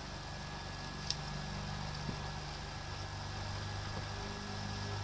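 Steady low mechanical hum, with a single faint click about a second in.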